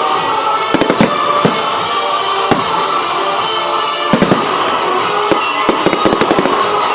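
Fireworks bursting and crackling over loud show music. The bangs come in clusters: about a second in, near four seconds, and again around five and a half to six and a half seconds.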